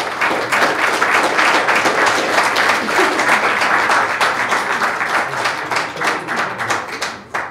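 Audience applauding, starting all at once and thinning to a few scattered claps near the end.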